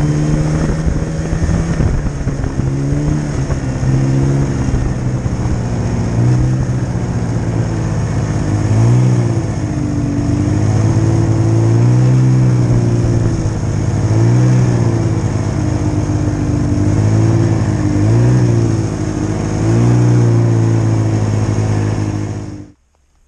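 Yamaha snowmobile engine running at speed, its pitch rising and falling again and again as the throttle is worked, over a steady rush of track and wind noise. The sound cuts off suddenly just before the end.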